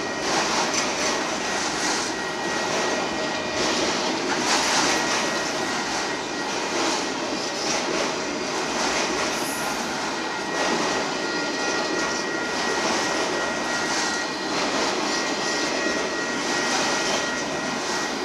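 Freight cars of a Union Pacific manifest train, boxcars and then autoracks, rolling steadily past: a continuous rumble and rush of steel wheels on rail, with a faint high whine running through it.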